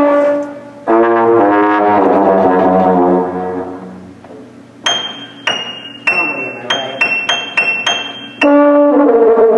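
Loud brass-sounding notes played on a musical instrument. A held note comes first, then a run of stepped notes, then a string of short, sharp-edged high notes, and another held note near the end.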